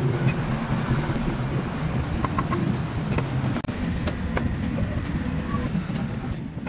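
Steady low hum of street traffic with engines running, and scattered sharp clicks and knocks over it.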